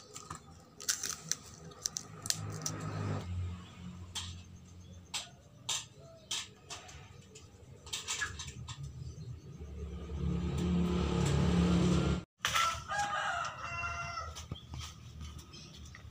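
Domestic chickens with a rooster crowing, the clearest crow just after a sudden cut about twelve seconds in. Before that come scattered sharp clicks and rustles, and a low rumble that builds for a couple of seconds.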